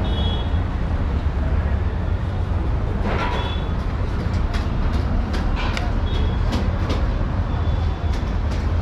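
Steady low rumble of busy street traffic, with scattered short clicks throughout.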